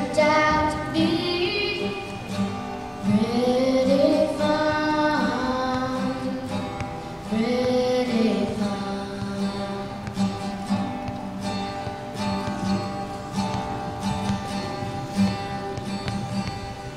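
A solo singer accompanied by acoustic guitar strumming. Sung phrases fill the first half, then the voice stops a little before halfway and the guitar carries on alone in a steady strum.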